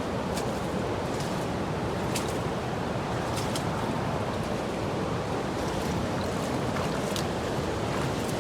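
Steady rushing of the Lucala River and Kalandula Falls, a waterfall heard close by, with a few faint clicks over it.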